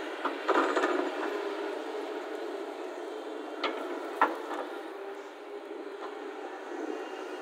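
A heavy vehicle's engine running steadily, with a few knocks; the sharpest two come about half a second apart near the middle.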